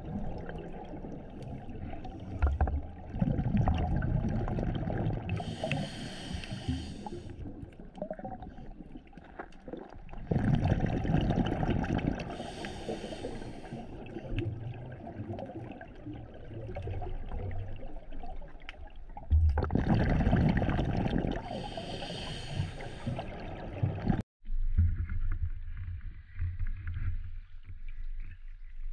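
Scuba diver breathing through a regulator underwater, heard through the camera housing: three breaths about eight seconds apart, each a rumbling gush of exhaled bubbles with a hiss from the regulator. Near the end the sound cuts off suddenly and gives way to quieter water sounds at the surface.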